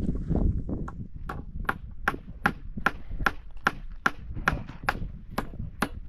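Repeated sharp blows of a tool on wood, evenly spaced at about two and a half a second, starting about a second in.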